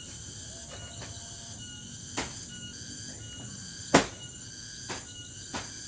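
Steady high-pitched insect chorus, some of it pulsing, with four sharp knocks or taps, the loudest about four seconds in.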